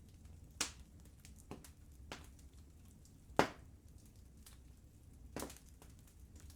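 Wood fire crackling in a fireplace: a low steady rumble of the flames with scattered small crackles and a few sharp pops, the loudest about a third and a half of the way through.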